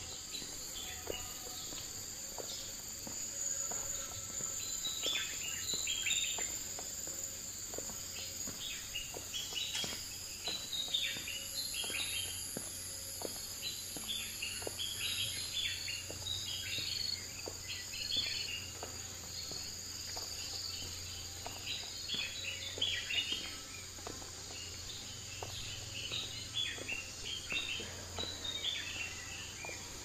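A steady high-pitched insect drone with many quick bird chirps coming in clusters, over a low steady hum.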